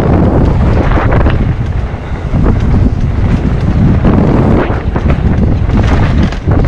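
Wind buffeting the action camera's microphone while a mountain bike is ridden fast down a trail, over a constant rumble of tyres and frequent short knocks and rattles from the bike.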